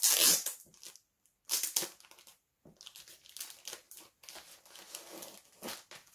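Clear plastic sleeve crinkling and rustling as it is opened and handled, in irregular bursts with the loudest right at the start.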